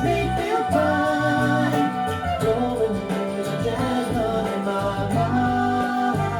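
Recorded soft-rock music with singing and instruments, played back from a record on a Dual 1228 turntable through a Pioneer SX-434 receiver and JVC speakers.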